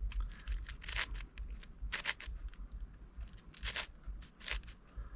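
Plastic layers of an 8x8 Rubik's cube being turned by hand: several short scraping clicks, one turn after another.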